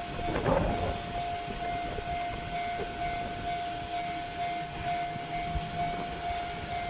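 Japanese level-crossing alarm ringing: an evenly repeating electronic ding at one steady pitch, over a low rumble of rail traffic.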